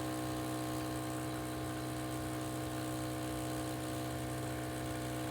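Nescafe Gold Blend Barista coffee machine running with a steady electric buzz as it brews and dispenses a cup of coffee.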